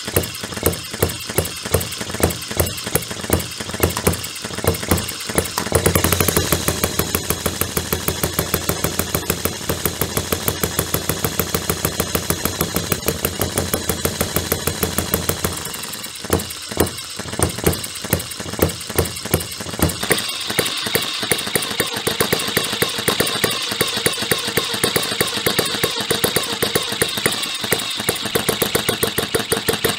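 Miniature single-cylinder model gas engine with spark ignition running, firing in sharp pops. It fires in separate pops about two a second, runs fast and continuous from about six seconds in, spaces its pops out again past the middle, and runs fast once more for the last third.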